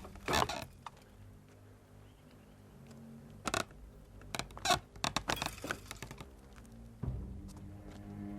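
Low held notes of a film score, with a scattering of sharp clicks and knocks over them, most of them bunched around the middle.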